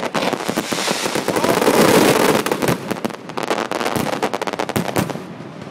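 Fireworks going off in a rapid, dense barrage of bangs and crackles, swelling about two seconds in, then thinning out and stopping after about five seconds.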